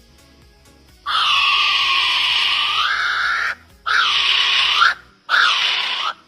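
A bird calling loudly three times. A long call of about two and a half seconds starts about a second in, followed by two shorter calls of about a second each.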